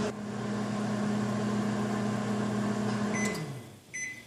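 Microwave oven running with its steady hum, which winds down and stops a little over three seconds in. Two short beeps follow, which signal that the heating cycle has ended.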